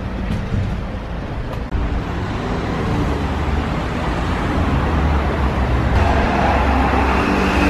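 Road traffic: a motor vehicle's engine rumble growing steadily louder, with a steady mechanical hum joining in about six seconds in.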